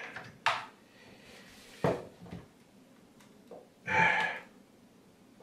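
Short plastic clicks and knocks from a plastic water line being pushed hard into the push-in connector on a water ionizer's plastic housing, with a louder, longer handling noise about four seconds in. The line is not yet seated in the fitting.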